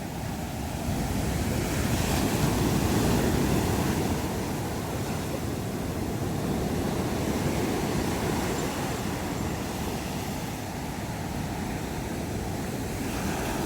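Sea surf washing onto a beach, a steady rush of breaking waves that swells a little a few seconds in, with wind buffeting the microphone.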